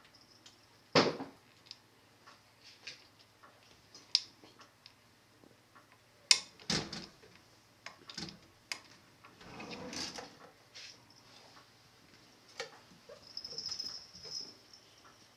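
A cat pawing and pulling at a wooden kitchen drawer: a series of knocks and clunks as the drawer front bangs against the cabinet and slides open, the loudest about a second in and twice around six to seven seconds in, with a longer rattling stretch around ten seconds. A faint steady hum lies underneath.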